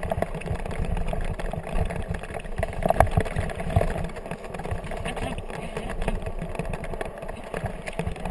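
Kickbike rolling fast over a bumpy, leaf-covered dirt trail behind a team of Alaskan huskies: a continuous rumble and rattle with irregular knocks as the wheels hit bumps, one sharp jolt about three seconds in.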